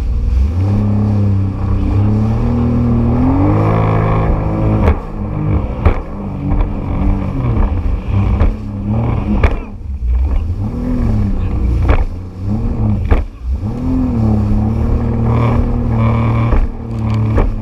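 Jet ski engine running at speed over choppy sea, its pitch rising and falling again and again as the throttle is worked. Several sharp slaps break in as the hull hits the waves.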